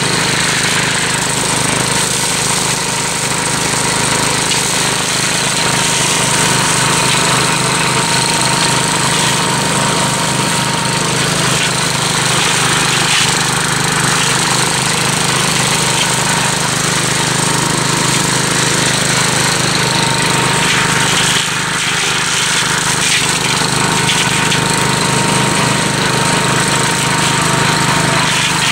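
Gravely Commercial 12 walk-behind tractor engine running steadily under load while its brush hog mower cuts through a thick pricker bush.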